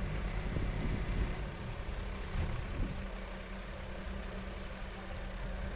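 Steady low mechanical rumble, like an engine running, with a few faint ticks.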